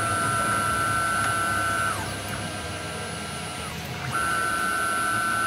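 NEMA 34 closed-loop stepper motor driving the milling machine's table along its ball screw, with a steady high whine over a low hum. The whine drops in pitch and stops about two seconds in as the table halts, then starts again about four seconds in as it moves once more.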